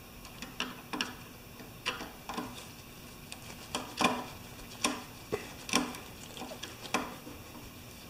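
About a dozen small, sharp, irregularly spaced clicks of a screwdriver and wire connectors working the terminal screws of a compressor pressure switch as it is wired up.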